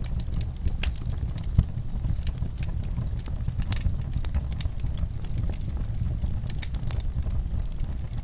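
Wood fire in a fireplace crackling, with frequent irregular sharp pops over a steady low rumble; one louder pop about a second and a half in.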